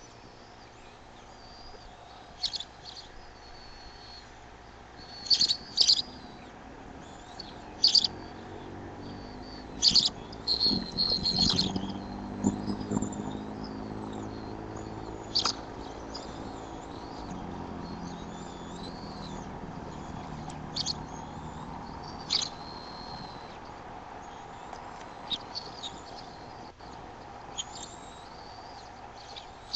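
Scattered short, high bird chirps and calls, some in quick pairs or short chattering runs, over a steady background hum. A low drone swells and fades in the middle.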